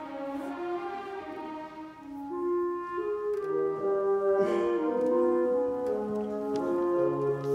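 Orchestra playing a slow passage of long held notes that step from one pitch to the next, growing louder about two and a half seconds in.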